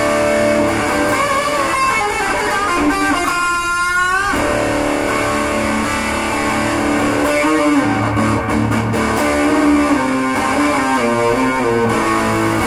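Amplified Schecter Diamond Series electric guitar with GNB humbucking pickups, played with single notes and chords. A note is bent and shaken with vibrato about three to four seconds in.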